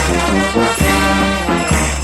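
Peruvian brass band playing, with horns sounding held chords over a steady low bass beat.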